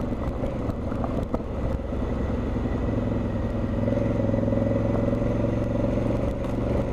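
Motorcycle riding a dirt forest road at a steady speed: the engine runs with an even drone, with a few light knocks about a second in.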